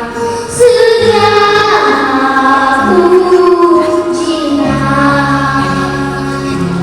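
A child singing a slow song solo, holding long notes that glide between pitches, over musical accompaniment. Low steady accompaniment notes come in just before five seconds in.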